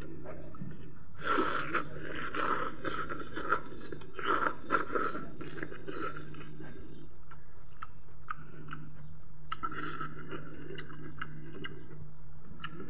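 A person chewing and crunching food close to the microphone, with wet mouth clicks, busiest in the first six seconds and again around ten seconds in.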